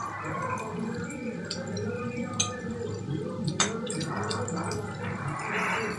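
Karmi saag leaf-roll pieces bubbling and sizzling in hot oil in a metal pan, with a plastic spoon stirring and knocking against the pan a couple of times.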